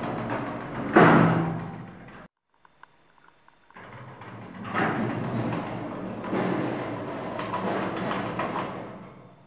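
Lift's sliding doors rumbling shut and meeting with a loud bang about a second in. After a short silent gap, the doors rumble and knock as they slide open again, fading out near the end.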